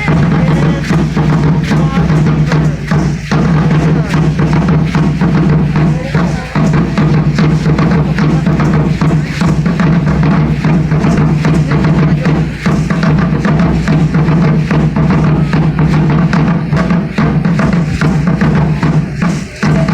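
Aztec danza ceremonial drumming: large drums beaten continuously in a dense, driving rhythm.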